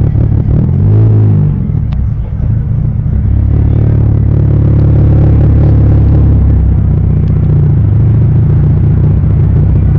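Car engine running loud and deep, with a quick rev that rises and falls about a second in, then settling into a steady low rumble.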